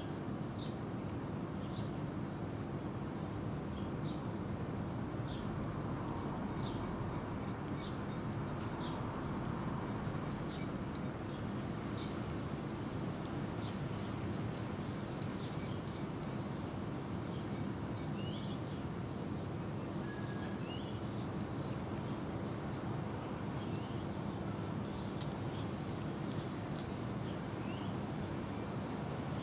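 Small birds chirping in short, high notes over a steady low hum.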